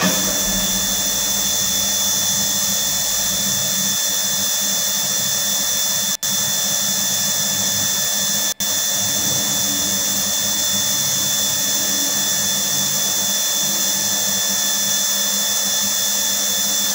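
Small electric water pump running steadily while the vending controller's filling relay is on, dispensing the water. It starts suddenly, cuts out twice for an instant about six and eight and a half seconds in, and stops suddenly when the fill is done.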